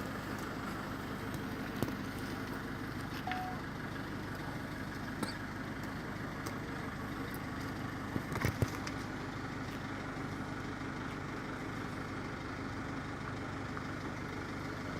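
Steady engine hum, like a motor vehicle idling, with a few short knocks about eight seconds in.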